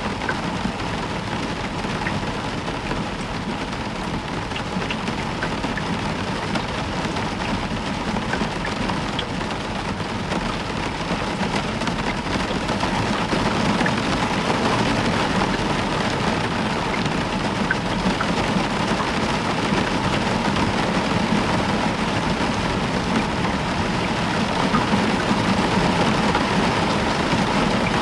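Heavy rain falling steadily on a roof, with scattered drop ticks, growing a little louder about halfway through.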